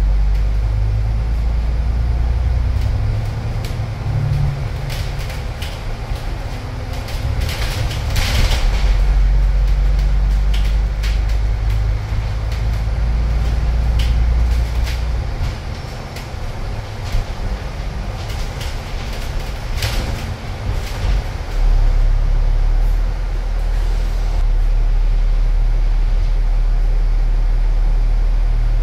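Alexander Dennis Enviro500 double-decker bus running, heard from its upper deck: a low engine drone that shifts in pitch and level several times as the bus drives on. Scattered clicks and rattles come through the cabin, with a brief hiss about eight seconds in.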